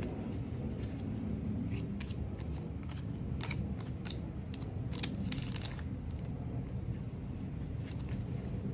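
Yu-Gi-Oh trading cards being handled and laid down in stacks: a scatter of short sharp flicks and rustles, most of them in the middle of the stretch, over a steady low rumble.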